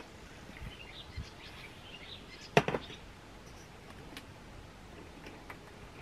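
A sharp hard clack about two and a half seconds in, followed at once by a lighter knock, from handling the opened Kärcher AD 4 ash vacuum's motor head and container. Faint bird chirps are heard in the background.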